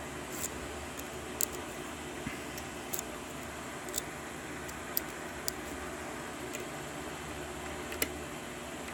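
Small sharp metallic clicks, about one a second and irregular, from a pick working the pins of a 6-pin Ace tubular lock, over a steady background hum.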